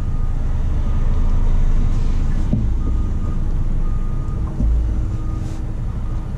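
Steady low rumble of a motor vehicle engine running, with a faint short beep repeating about once a second in the middle of the stretch.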